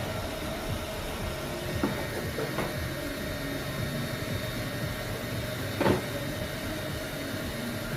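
A steady hum with a faint held tone, broken by a few light clicks, the loudest about six seconds in.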